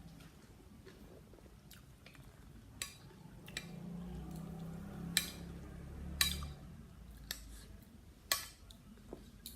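Eating sounds: about six sharp clicks and clinks of cutlery, dish or crab shell, spread a second or so apart, with a low murmur around the middle.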